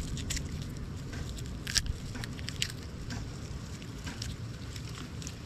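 Garlic cloves being peeled by hand: scattered faint papery crackles and ticks from the dry skin, over a low steady rumble.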